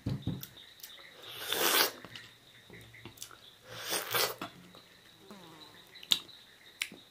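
Mouth noises of someone eating small sohphie fruit: scattered wet lip smacks and clicks, with two sharp breathy sniffs or sucks about a second and a half and about four seconds in.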